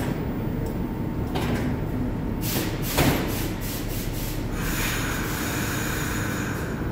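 R62A subway train standing at the platform with its doors open, its equipment giving a steady low hum. There is a sharp knock about three seconds in, and a hiss starts a little before five seconds.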